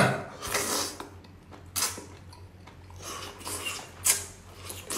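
A person slurping up and chewing long, chewy strips of spicy duck intestine. There is a hissy slurp about half a second in, a sharp suck near two seconds, then a few short wet mouth smacks and sucks.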